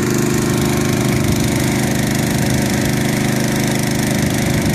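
Small engine of a 3-inch water pump running steadily at part throttle, not full blast, while it fills the bag through hoses.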